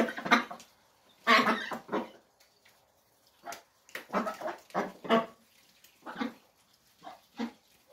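Domestic ducks quacking in a string of short, loud calls while they feed.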